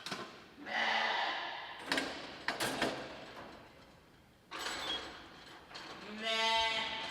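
Sheep bleating: a harsh bleat about a second in and a clearer, pitched bleat near the end, with a few sharp knocks in between.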